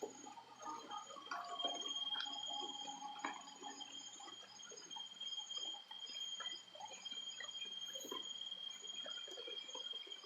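Insects droning steadily on one high note, with a higher pulsing chirp above it. Underneath are irregular rustling and footsteps through vegetation.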